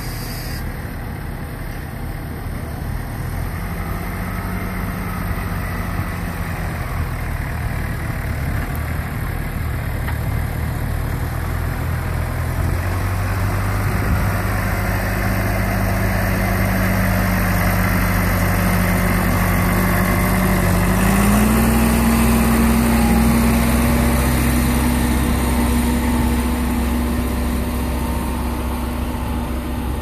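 John Deere 6400 tractor's four-cylinder diesel engine running while pulling a Lemken reversible plough. The engine note steps up to higher revs about two-thirds of the way through, and it is loudest as the tractor passes close.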